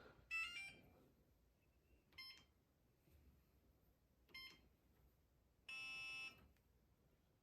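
Electronic beeps from a Wyze Lock Bolt smart deadbolt: a quick stepped chirp of a few notes near the start, two short single beeps about two seconds apart, then one longer beep of about half a second near the end.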